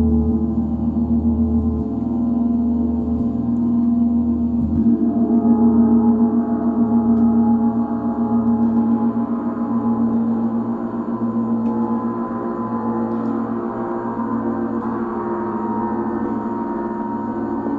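A gong ringing on in a sustained, shimmering wash of many overtones that waver and beat against each other, used as a sound-bath drone. A deep low hum underneath drops away in the first five seconds.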